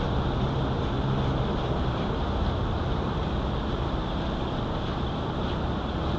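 Steady low rumble and hiss of background noise with a faint low hum, unchanging.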